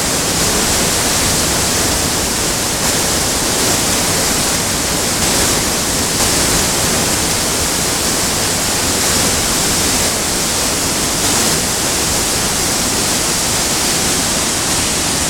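Steady rush of whitewater pouring over Rainy Falls on the Rogue River, an even noise at constant level.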